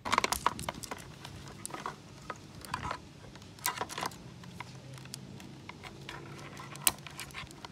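Small clicks and taps of plastic wire connectors and a blade-fuse holder being handled against the scooter's plastic battery bay, with a sharper click near the end as a connector snaps together. A faint steady low hum runs underneath.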